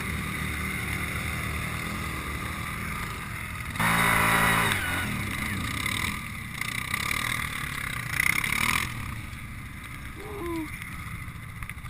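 ATV engines running, with a loud rev about four seconds in that falls away, and another rise in engine noise a few seconds later.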